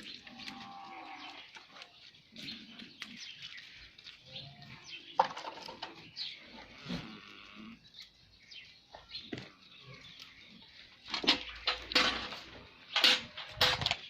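Goats bleating, with scattered knocks and clatter. The knocks are loudest and come in a cluster during the last three seconds.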